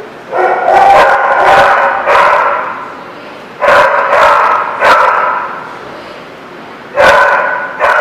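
Two small dogs play-fighting, barking and yipping at each other in three loud bouts: about a second in, around four seconds, and near the end.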